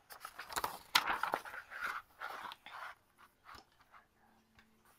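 Soft paper rustling and handling noise as the pages of a picture book are turned, for about three seconds.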